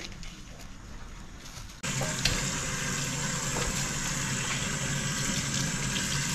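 Water running steadily from a tap, starting abruptly about two seconds in.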